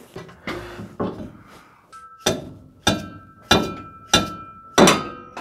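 A hammer striking an old pickup shock absorber five times, about two-thirds of a second apart, each blow a sharp metallic clank with a brief ring. The blows are knocking the shock's rubber bushing loose from its upper mounting stud.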